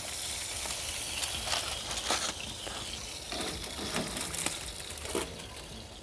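Handling noises, scattered clicks and knocks with some rustling, as foil-wrapped ribs are lifted out of a smoker, over a steady high hiss.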